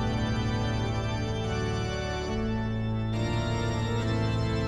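Background music: sustained organ-like keyboard chords that change a few times.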